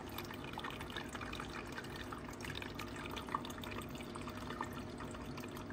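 Electric pet drinking fountain with water trickling and dripping steadily, with many small scattered plops, over a faint steady pump hum.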